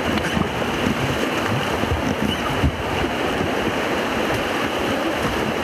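Loud, steady rush of whitewater around a paddle raft running a Class IV rapid.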